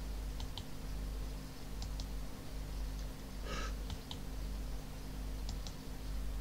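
Computer mouse clicking, in quick pairs about four times, over a steady low hum. There is a short scuffing noise just past the middle.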